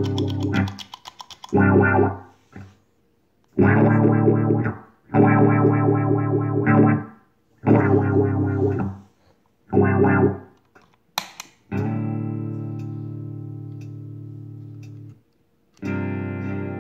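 Electric guitar played through distortion and effects pedals: six short chords, each cut off, then a sharp click and a long chord left ringing and fading for about three seconds, with another chord struck near the end.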